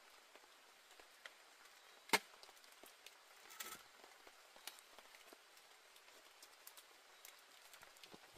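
Metal camping cookware handled at a wooden table: faint clinks and a short scrape of a spoon and pot against a pan, with one sharp clink about two seconds in.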